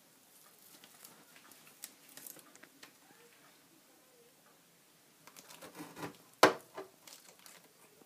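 Frozen food in plastic bags and tubs being handled and shifted about inside a freezer: crinkling, rustling and small knocks, with one sharp knock well into the second half.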